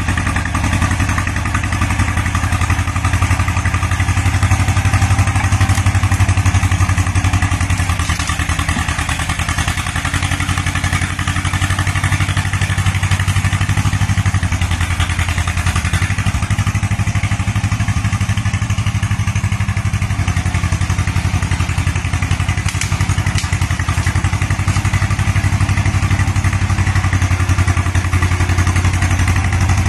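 1960 John Deere two-cylinder bulldozer engine running steadily, with an even, fast pulse, and some clatter from the machine.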